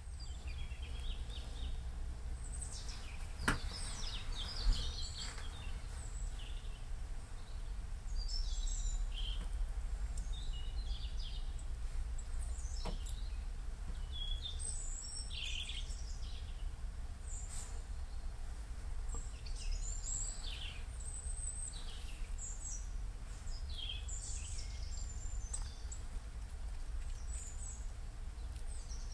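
Small wild birds chirping in short, high calls scattered throughout, over a steady low background rumble, with a sharp click about three and a half seconds in.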